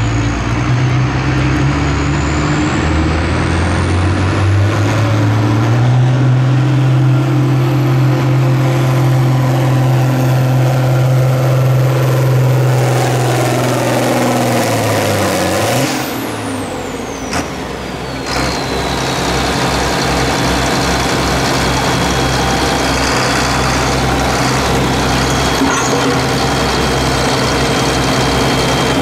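John Deere 4430 pulling tractor's turbocharged diesel under full throttle on a pull: the engine note climbs over the first few seconds, holds, then falls away about halfway through as the pull ends. A high turbo whistle then winds down steeply and settles to a steady whine over the engine at a lower speed.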